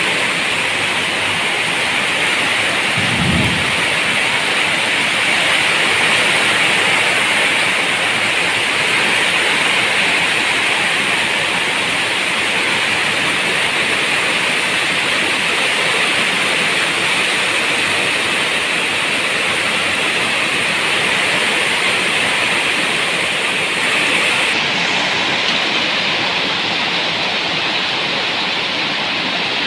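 Heavy rain falling steadily as a dense, even hiss, with one brief low rumble about three seconds in.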